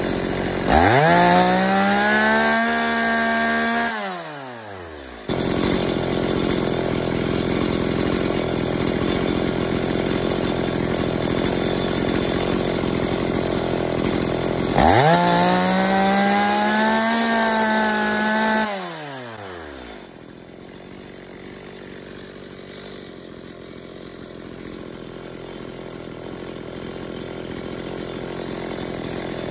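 Two-stroke chainsaw engine running on the bench, revved twice to full throttle. Each time it is held for about three to four seconds at a steady high pitch, then let fall back to idle, while the high-speed mixture screw is turned richer to bring top speed down toward 12,000 RPM. About twenty seconds in it settles to a quieter idle.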